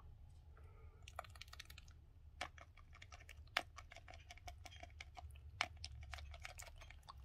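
A hen pecking egg yolk from a dish: faint, quick, irregular beak taps starting about a second in, with a few sharper taps standing out.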